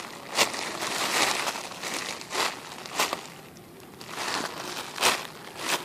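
Plastic packaging crinkling and rustling as it is handled, in irregular bursts, several of them sharper and louder.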